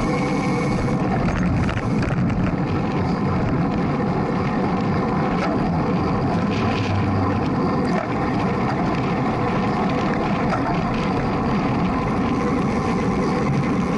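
Steady rush of wind and road noise from a road bicycle racing at speed, picked up by a camera mounted on the bike.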